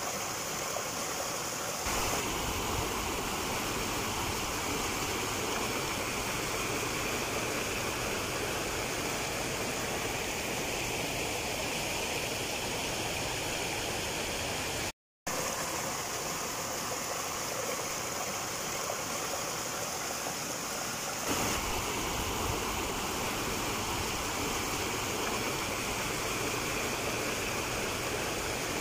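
A river flowing over rocks: a steady water noise, cut out for a moment about halfway through.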